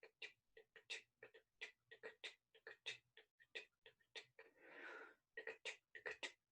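Quick, rhythmic breathy vocal sounds: short puffs and clicks from the mouth at about four to five a second, broken by one longer breath about two-thirds of the way through.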